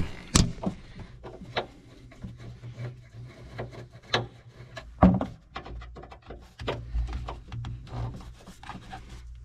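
Long Phillips screwdriver turning a screw out of a plastic tractor-cab trim panel: scattered clicks and scraping of the tip in the screw head, with a few sharper knocks. A low steady hum runs underneath.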